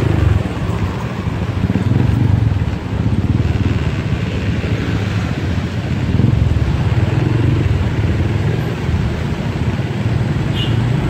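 City street traffic dominated by motorcycle engines running, a steady low rumble.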